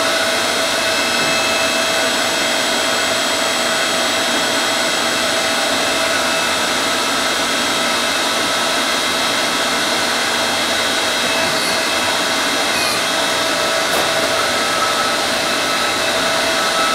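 Electric pump motor of a Potter hydraulic press running steadily, a loud even hum with a few steady tones on top, as the ram lifts and presses silver sheet and a lead pad into a concho die.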